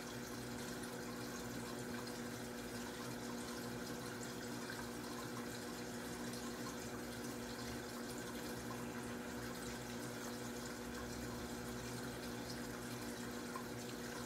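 Aquarium filter running: a steady trickle of moving water with a constant low hum.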